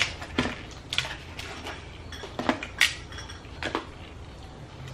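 Crab-leg shells being cracked and picked apart by hand, with shells and utensils clicking against metal serving trays: about eight sharp, irregular cracks and clicks.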